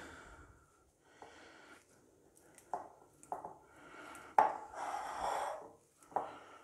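Boiled potatoes being crushed by hand in a glass bowl: soft squishing and rubbing, with a few short knocks against the bowl.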